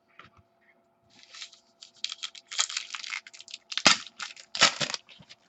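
Crinkling and tearing of a foil sports card pack being handled and opened, in a quick run of short rustles, with two sharper knocks near the end.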